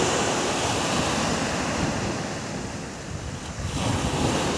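Sea surf washing onto a sandy beach, a steady rush of breaking waves that eases about three seconds in and swells again near the end, with wind buffeting the microphone.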